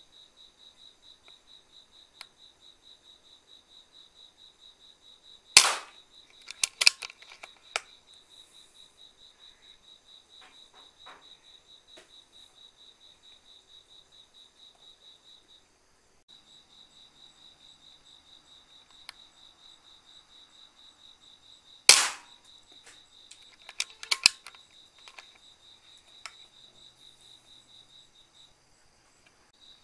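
Two shots from a PCP air rifle, each a single sharp crack followed within a couple of seconds by a few fainter clicks and knocks. A steady, pulsing chirping of crickets runs underneath.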